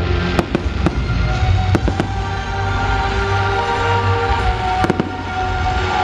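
Fireworks bursting in a string of sharp bangs at uneven intervals over a continuous low rumble, with music playing alongside.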